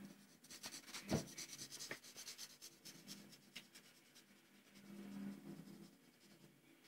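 Felt-tip marker scratching on paper in quick back-and-forth strokes as a heart is coloured in, busiest in the first couple of seconds and fainter after, with a single knock about a second in.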